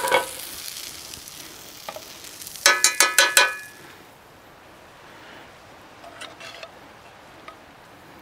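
A metal spoon clinks and scrapes against a metal pan, once at the start and then in a quick run of ringing clinks about three seconds in, over the sizzle of food frying on the stove, which fades out about four seconds in as the pan is lifted off the burner.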